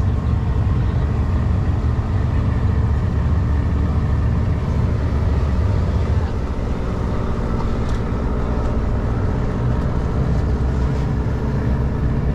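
Tour boat's engine running steadily under way, a continuous low hum that drops a little in level about halfway through.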